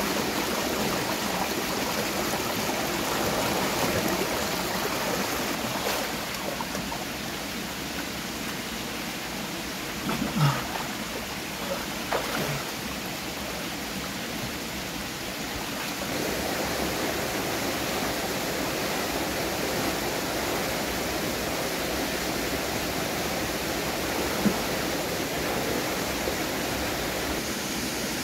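Stream water flowing steadily. A few short, sharper sounds rise above it about ten seconds in, again about two seconds later, and once more near the end.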